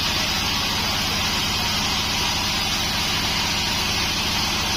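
Pandan band sawmill running steadily: a constant engine drone with an even high hiss over it, unchanged throughout.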